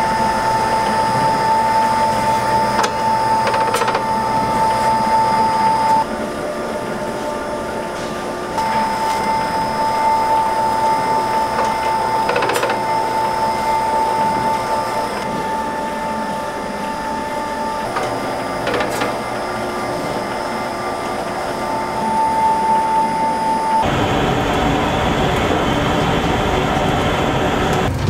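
Electric noodle-cutting machine slicing buckwheat dough into noodles, its motor giving a steady whine that cuts out and starts again twice. Near the end the whine stops and a broader, lower rushing noise takes over.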